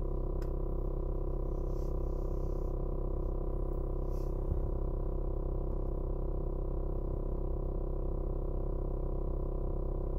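Background music: a steady synthesizer pad of sustained, unchanging tones.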